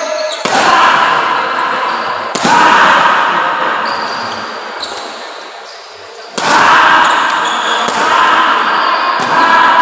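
Badminton rally in a large echoing hall: about five sharp racket hits on the shuttlecock, each ringing out in the hall's echo, with voices of players and onlookers.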